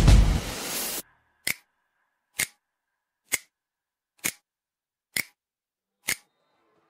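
Music cuts off about a second in, then six sharp, evenly spaced ticks, a little more than one a second, like a clock ticking, with dead silence between them.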